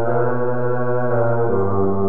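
Background music: sustained, droning chords held steady, shifting to a new chord about a second and a half in.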